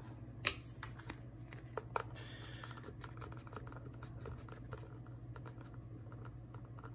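Scattered light clicks and taps from handling a vinyl-wrapped AR-15 magazine, over a steady low hum.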